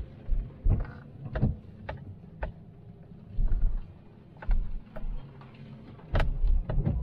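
Vehicle cabin noise while driving slowly over a rough, washed-out dirt road: a low running rumble with irregular knocks and rattles.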